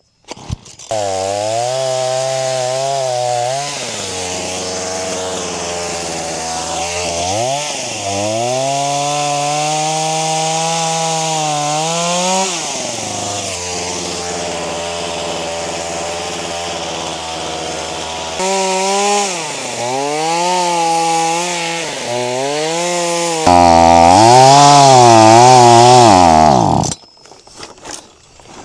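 Chainsaw running and cutting through a log, its engine pitch repeatedly rising and sagging as the chain bites into the wood and eases off. It is loudest in a final push and cuts off suddenly near the end.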